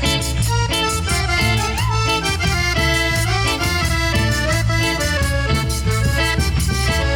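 Cumbia music without singing: an instrumental passage with a steady beat and sustained melody notes over it.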